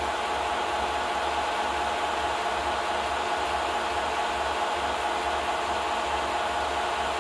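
Film projector running: a steady mechanical whir and hiss with a low, pulsing hum.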